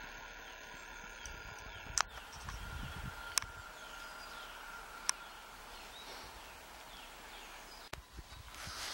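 Quiet trackside woodland ambience: small birds chirping in short falling calls, over a faint steady whine, with a few sharp clicks.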